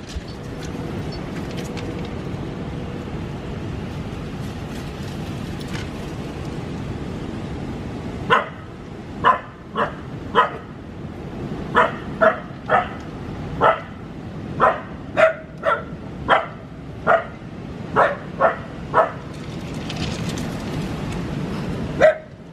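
Husky puppy barking at a plastic bag in the yard, a string of about sixteen short, sharp barks. They start about a third of the way in, come roughly one or two a second for about ten seconds, and one more bark follows near the end.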